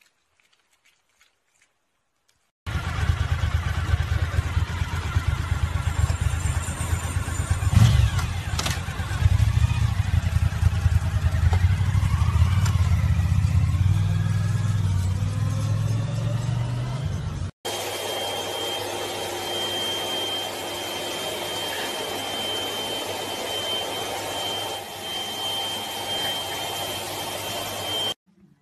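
Motorcycle engine running and revving, its pitch rising and falling, with a sharp bang about a third of the way through. After an abrupt cut, a steadier noise follows with a thin, high steady whine.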